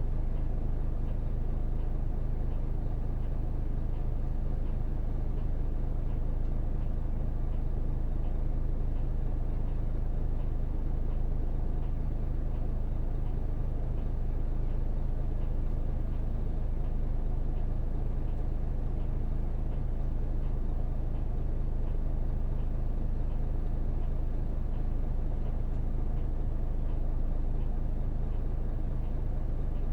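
Hino PJ-KV234L1 route bus's 6HK1 inline-six diesel running steadily, heard from inside the cabin, with a constant low drone and faint regular ticking throughout.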